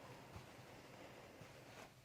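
Near silence: faint room tone with a low steady hum and two soft small ticks.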